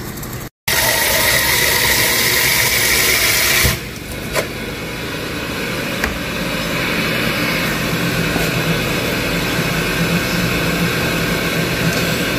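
Water running hard from a kitchen tap for about three seconds, as cold water goes onto the freshly boiled broccoli, cutting off sharply. Then a steady rushing noise with a low hum runs on, growing slightly louder.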